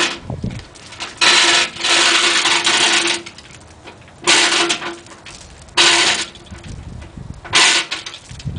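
Chain hoist (chain fall) worked by hand: the hand chain rattles and clinks through the hoist in several separate pulls, taking up the load chain that hangs the lathe from the loader bucket.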